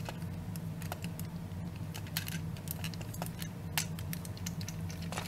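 Plastic parts and joints of a TFC Toys Heavy Labor transforming action figure clicking and knocking irregularly as they are twisted and folded by hand, over a steady low hum.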